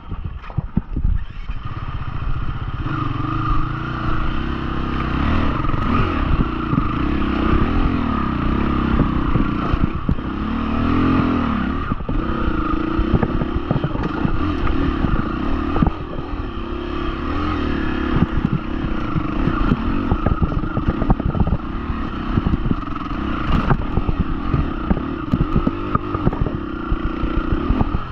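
Husqvarna FE350's four-stroke single-cylinder engine being ridden off-road, its pitch rising and falling as the throttle is worked, with many knocks and rattles throughout. The throttle is briefly let off about twelve and sixteen seconds in.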